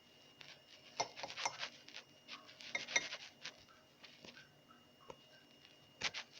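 A spoon clinking against a dish in a few scattered sharp taps, loudest about three seconds in, as protein powder is spooned in.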